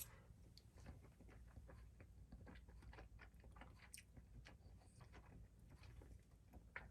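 Faint chewing of a mouthful of creamy pasta: soft, irregular wet clicks of the mouth, very low in level.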